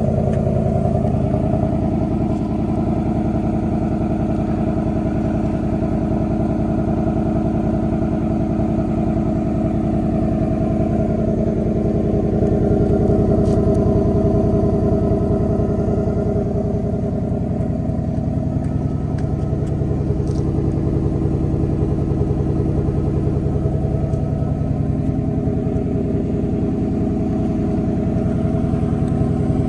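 2024 Mustang GT's 5.0-litre Coyote V8 idling steadily through its standard, non-active exhaust while still on its cold-start idle.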